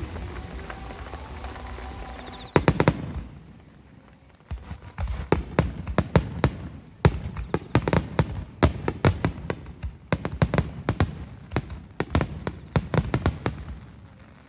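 Starmine fireworks barrage: a cluster of sharp shell bursts about two and a half seconds in, then from about four and a half seconds on a rapid, dense run of cracks and bangs, one burst after another.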